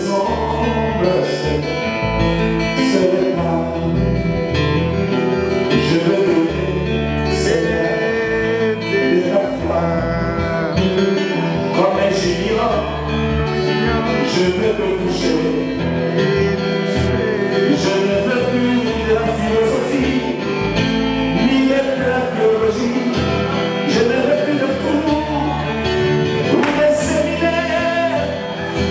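A man singing a gospel praise and worship song into a microphone, with amplified acoustic guitar accompaniment and a low bass line underneath.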